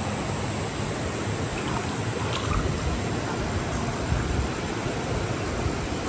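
Forest stream flowing, a steady, unbroken rush of water.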